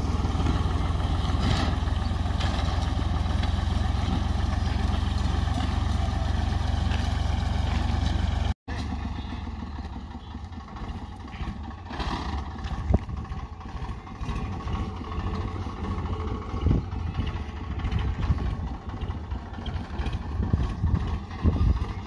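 Tractor diesel engine running steadily while pulling a mulch-film laying implement across raised beds. About eight and a half seconds in, the sound cuts off and goes on quieter and more uneven, with scattered knocks.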